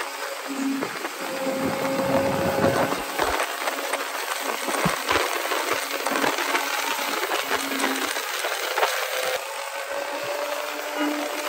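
Kawasaki ZX25R's inline-four 250 cc engine running as the bike rides, its tone coming and going over road noise, with many sharp clicks and crackles scattered throughout.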